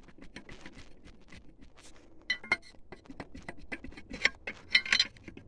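Rapid, irregular metallic clicking and clinking from a wrench working the big crankshaft pulley nut of an old Peugeot diesel engine slowly loose, with a few louder ringing clinks near the end.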